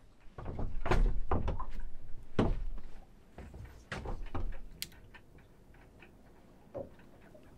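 A run of hollow knocks and thumps from handling fishing tackle and moving about on a small boat's deck, most of them in the first four seconds, then a single click and one last thump near the end.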